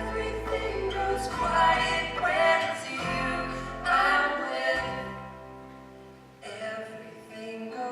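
Live acoustic band with several voices singing long held notes in harmony over sustained low chords. The music dips quieter for a moment past the middle.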